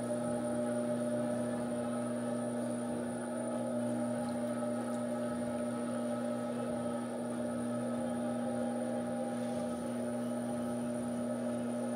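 Electric potter's wheel motor humming steadily at an even speed while clay is thrown on it.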